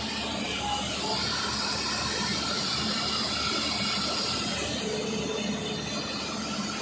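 Hyundai 215 crawler excavator's diesel engine running steadily with a continuous hiss of hydraulics as the arm works in the soil.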